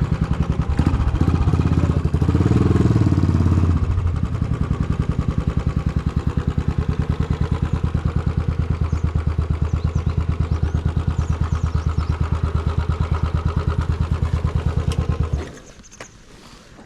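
Motorcycle engine running loud through its silencer, a little fuller for the first few seconds, then idling with an even beat until it is switched off about fifteen seconds in.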